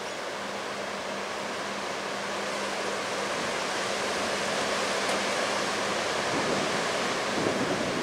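Wind rushing through bare trees, a steady rushing that slowly grows louder, with a faint steady hum underneath that stops near the end.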